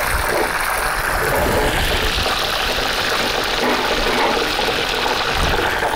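Hot oil sizzling and bubbling steadily in a pot as breaded drumsticks deep-fry with the heat turned up.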